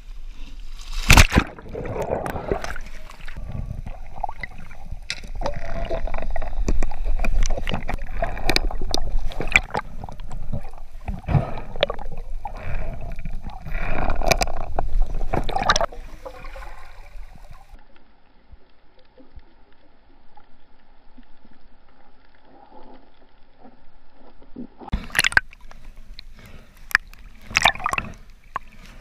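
Seawater sloshing and gurgling close around the microphone, with bubbles, splashes and sharp knocks. A little over halfway through it turns much quieter, with a few knocks again near the end.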